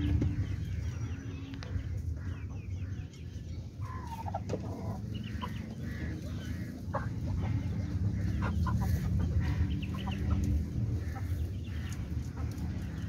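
Hens clucking, many short calls scattered through, one with a falling pitch about four seconds in, over a steady low rumble.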